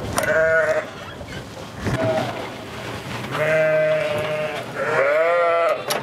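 Karacabey Merino sheep bleating in a lambing barn: four calls, one short near the start, a brief one about two seconds in, a long held one, and a wavering one near the end. A metal door bolt clacks near the start.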